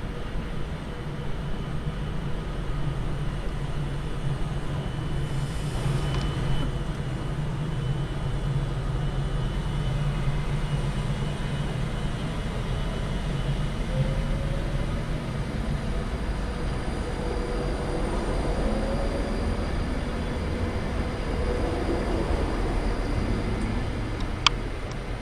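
A train running at the station: a steady low drone, with faint whining tones that drift in pitch in the second half and a single sharp click near the end.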